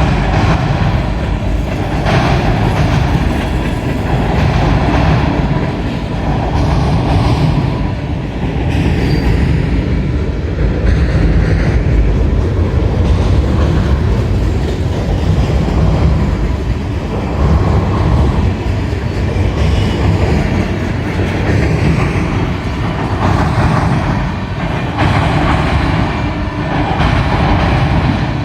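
A train passing close by: a steady, loud rumble of rolling railcars, with a clatter that swells and fades every second or two.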